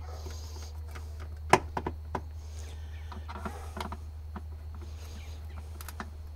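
Plastic golf-cart dash console being pressed into place and screwed down: scattered clicks and knocks of the panel and screwdriver, the sharpest about a second and a half in, over a steady low hum.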